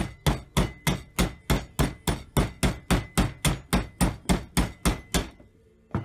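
Hammer tapping a steel drift pin into the pivot of a VW Beetle pedal assembly: sharp metal-on-metal blows in a steady rhythm, about three a second. The blows stop about five seconds in, with the pin punched home.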